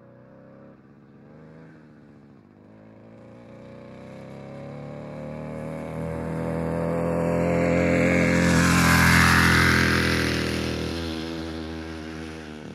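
A moped riding past, from a sound-effects library: its small engine gets steadily louder to a peak about nine seconds in, then fades away, its pitch dropping about eleven seconds in as it passes. It is heard through a 3D audio panner with reverb.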